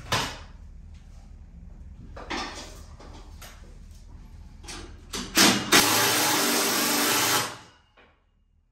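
Cordless power driver running for about a second and a half near the end, driving home a brush guard mounting bolt, after a few short knocks and clicks of the tool being handled.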